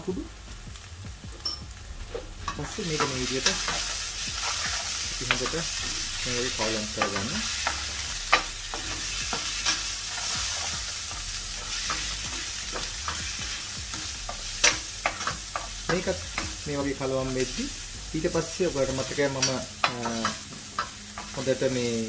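Chopped onions and ground spices sizzling in oil in a stainless steel pan, stirred with a spatula that scrapes and clicks against the pan. The sizzle grows louder about three seconds in.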